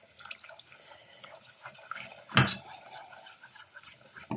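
Milk pouring into a saucepan of roux while a whisk stirs it into a thickening béchamel, making small wet splashes and scrapes. A single sharp knock sounds about two and a half seconds in, and a smaller one near the end.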